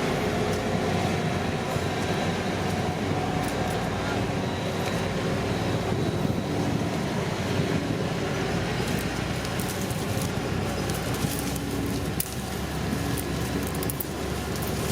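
Shantui crawler bulldozer's diesel engine running steadily while it works, with short clicks and clatter coming in from about nine seconds in.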